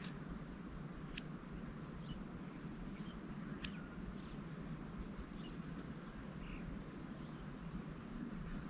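Faint rural outdoor ambience: a steady high-pitched hum over a low hiss, with a few faint distant bird chirps. Two sharp clicks come about a second and three and a half seconds in.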